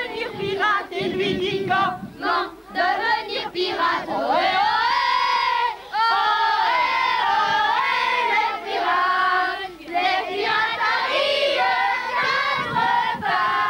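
A group of children singing together, the phrases short and choppy at first, then long held notes from about four seconds in.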